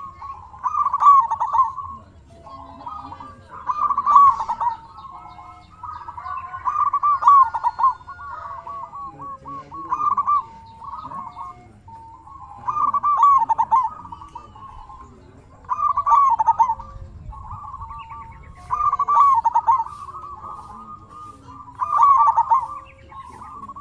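Zebra dove (perkutut) cooing: loud bubbling, trilled phrases repeated about every three seconds, with softer short notes between them.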